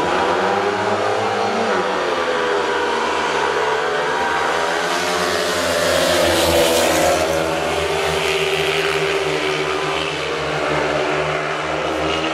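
Several speedway motorcycles racing, their engine notes rising and falling as they accelerate and back off, loudest about six to seven seconds in.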